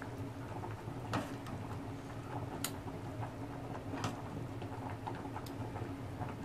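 Steel ladle scooping and pouring thick dal in a kadai: faint wet sounds with a few sharp metal clicks and taps against the pan, spread through the span.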